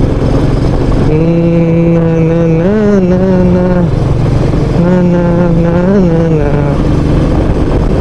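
Royal Enfield Meteor 350's single-cylinder engine running at a steady cruise. Over it a voice hums two long held notes, each with a short wavering rise near its end.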